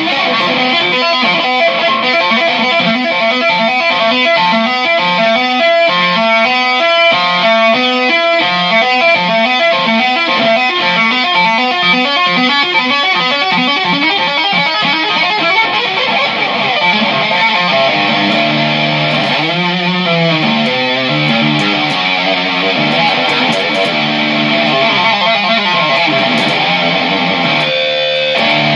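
Electric guitar music, loud and continuous, with quick runs of notes in the first half and lower, longer-held notes in the second half.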